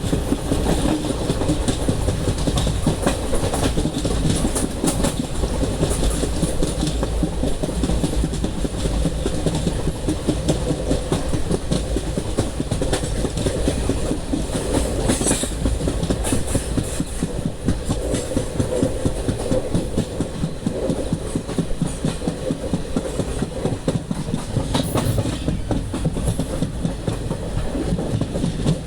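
Indian Railways train running along the track, its wheels clattering steadily and rapidly over the rails, with a few sharper metallic clanks mixed in.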